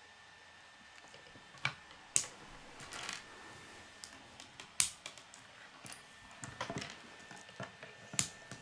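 Plastic K'nex connectors clicking as they are snapped onto K'nex rods by hand: a handful of sharp, irregular clicks with light handling of the plastic parts between them.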